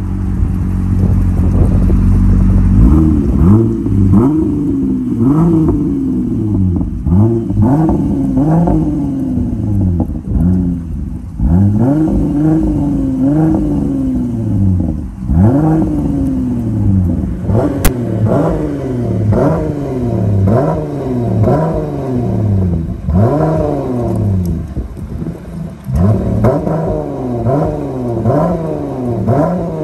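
2018 Jeep Grand Cherokee's 3.6-litre V6 through a Street Demon performance exhaust, idling, then blipped over and over, a quick rev rising and falling about once every second and a half. A single sharp click about eighteen seconds in.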